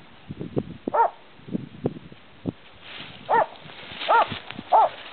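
A hunting dog barking in four short, high barks: one about a second in, then three close together in the second half. Scattered crunches and rustles from the brush come in between the barks.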